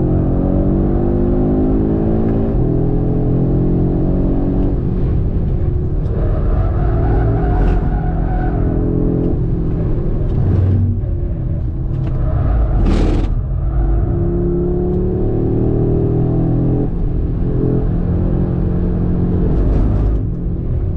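Audi RS3's 2.5-litre five-cylinder engine driven hard on a race track, its pitch climbing through each gear and dropping back at the shifts several times. A short sharp burst of noise comes about two-thirds of the way through.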